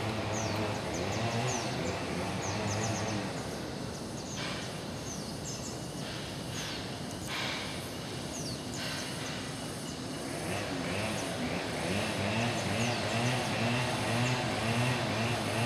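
Outdoor ambience of small birds chirping over and over, each a short high downward chirp, over a steady low hum of distant traffic, with faint voices toward the end.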